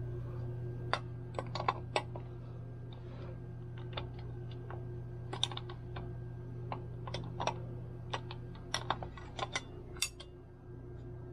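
Light, irregular clicks and taps of small hard parts of a KitchenAid mixer being handled and fitted, coming in scattered clusters, over a steady low hum.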